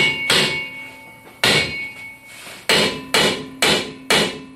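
Hammer blows on the rust-seized front brake drum of a VW Thing, struck to break it loose. About six sharp metallic strikes, each with a short ringing tail; the last four come quicker, about half a second apart.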